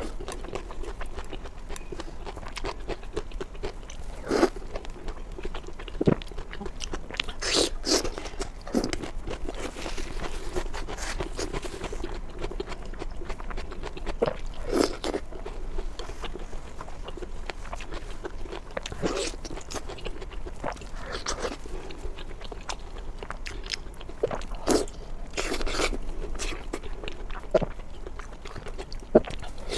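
Close-miked eating of maocai: irregular bites and crunches with chewing in between, some crunches sharper and louder than the rest, over a faint steady hum.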